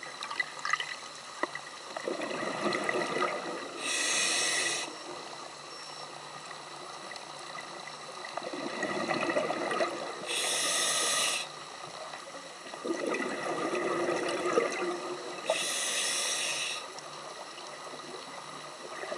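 Scuba diver breathing through a regulator underwater: three breaths about six seconds apart, each a burst of bubbling exhaled air followed by a short, steady hiss from the regulator on the inhale.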